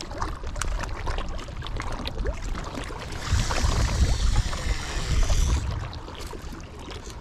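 Round baitcasting reel's spool whirring as line pays out on a cast, from about three seconds in for two and a half seconds, over low wind rumble on the microphone and light clicks of handling.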